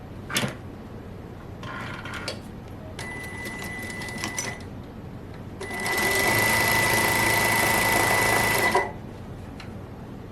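Sewing machine stitching: a click, two short bursts, then a steady run of about three seconds that stops abruptly.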